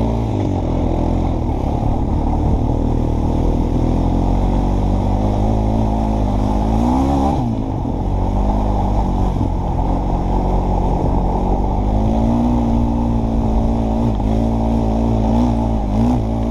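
Honda ATV engine running steadily under throttle, its pitch rising briefly about seven seconds in and again near the end.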